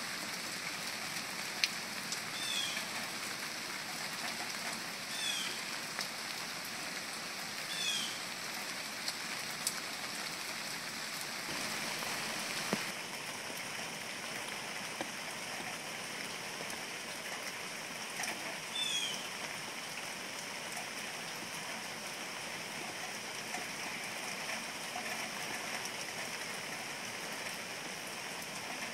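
Steady rain falling, an even hiss with scattered sharp drip ticks. A short high descending call sounds three times in the first eight seconds and once more about two-thirds in.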